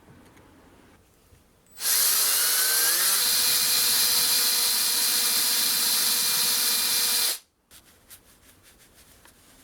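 Small electric power tool, such as a drill or rotary tool, starting up about two seconds in, its motor whine rising in pitch and then running steadily for about five seconds before cutting off suddenly. A few faint clicks follow.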